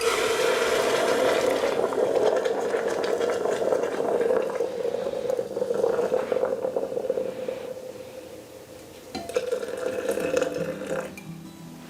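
Water pouring steadily into a container to make up a caustic-soda paint-stripping bath. It eases off about two-thirds of the way through, picks up again, then stops abruptly near the end.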